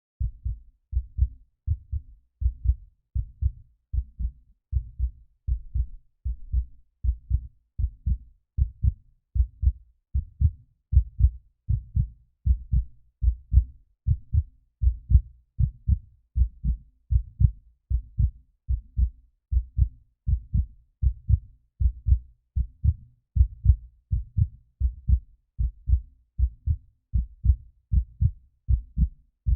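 Human heartbeat: steady lub-dub, each beat a pair of low, dull thumps, a little under one beat per second.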